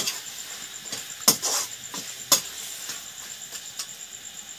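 A metal spatula stirring chicken pieces in a steel kadhai, with a few sharp clinks and scrapes against the pan in the first two and a half seconds, over a faint steady hiss.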